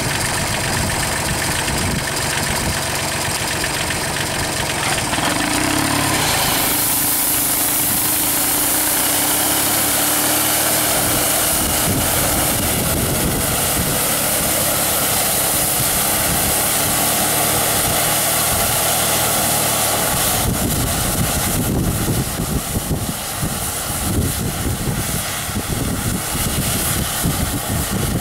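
Tractor engine running an air-blast orchard sprayer, its axial fan blowing mist out through a ring of nozzles. A loud hiss of air and spray joins the engine about six seconds in, and from about twenty seconds in an uneven low rumbling comes in.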